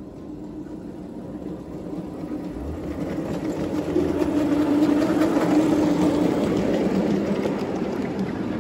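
A 5-inch gauge ride-on miniature locomotive hauling loaded passenger trucks approaches and passes close by: a steady motor hum with the rumble of wheels on the rails, growing louder to its nearest point about four to six seconds in.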